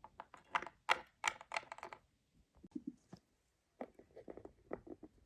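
A quick, uneven series of light clicks and taps, in bunches with short pauses between.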